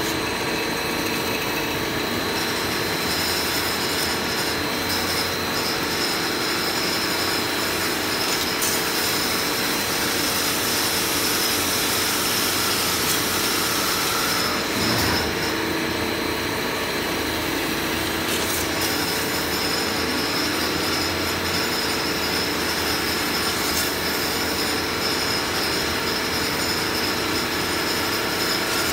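CNC metal spinning lathe running, its forming roller pressing a spinning sheet-metal disc over a mandrel into a bell shape: a steady whirring machine noise with a thin high whine, and a brief bump about halfway.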